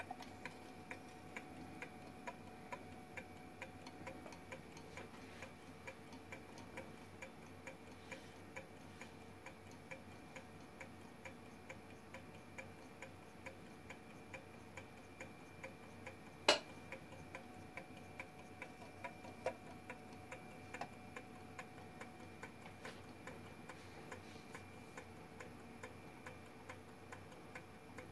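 Small gamma Stirling engine running on a cup of hot water, its moving parts ticking steadily and evenly as the flywheel turns. One louder sharp click a little past halfway.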